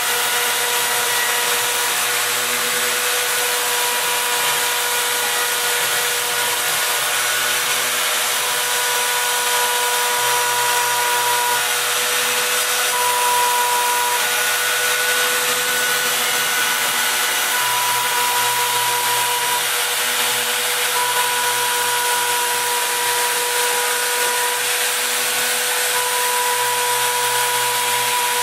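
Home-built gantry CNC router cutting part outlines in a sheet: the spindle runs with a steady tone over a hiss, while the axis motors add a higher tone that starts and stops in stretches of a second or two as the head moves along the cut.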